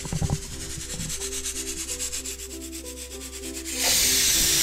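Rapid, even scraping at about ten strokes a second. About four seconds in, a loud steady sizzle starts: batata vadas deep-frying in hot oil.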